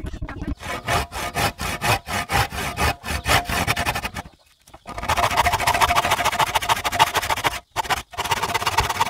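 Hand saw cutting through a wooden board in rapid back-and-forth strokes, stopping briefly a little before halfway, then sawing on.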